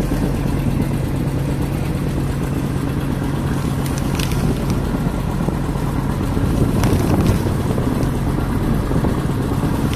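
Fishing boat's engine running at a steady low drone, with a few light knocks about four and seven seconds in.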